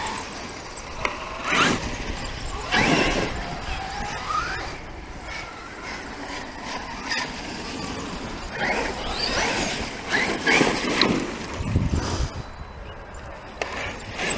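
Electric RC monster trucks, a Traxxas XRT among them, driving on grass and dirt. Their brushless motors and drivetrains whine, rising and falling in pitch as the trucks speed up and slow down, several times over.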